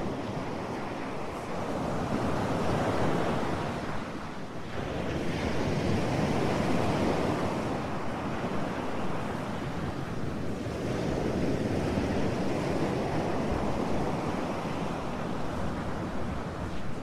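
Ocean surf: waves washing in and falling back, the rush swelling and easing every five or six seconds.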